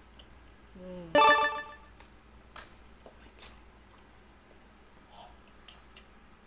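A short, loud ringing tone about a second in, followed by a few faint clicks and slurps from eating noodles with metal chopsticks.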